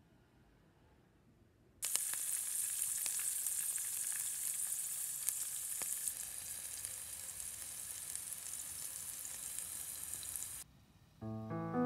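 Battered mugwort and other spring greens deep-frying in hot oil: a steady sizzle with scattered crackles, starting suddenly about two seconds in and cutting off near the end, where piano music begins.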